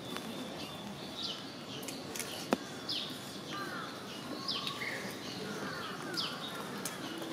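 Birds calling: a short falling note repeats about every one and a half seconds, with other chirps mixed in. There is one sharp click about two and a half seconds in.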